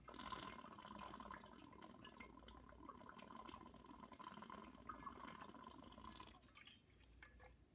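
Faint sound of a person drinking water in one long, continuous sip that stops about six seconds in.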